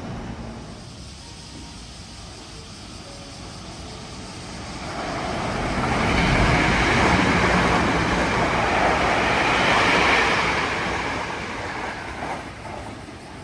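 A vehicle passing close by: a rushing noise swells up about a third of the way in, holds for several seconds and fades away near the end.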